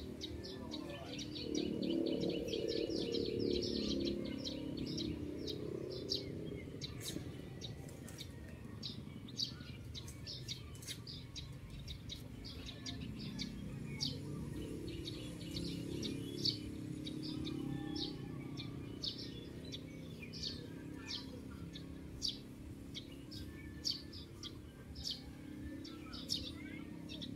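Small birds chirping: many short, high chirps, coming thick and fast in the first few seconds and more spaced out afterwards, over a low steady background sound.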